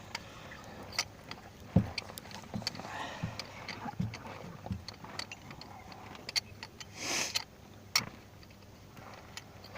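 Scattered light clicks and knocks of hand tools being handled at the engine while a spark plug is worked on, with a short rustle about seven seconds in.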